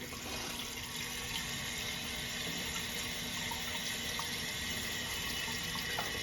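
Water running into a toilet tank through the fill valve as it refills after the supply is turned back on: a steady hiss with a few faint ticks.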